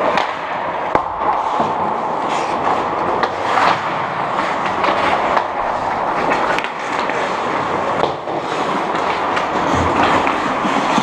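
Ice hockey skates scraping and carving on the ice as players skate, with sharp clacks of sticks and puck every few seconds.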